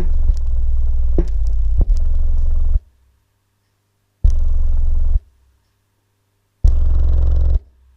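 Coral PRF 320 subwoofer driver playing deep bass in free air, unmounted without an enclosure, with a buzzy, distorted edge. One long burst of about three seconds, then two short bursts of about a second each, with silence between them and a click at each start.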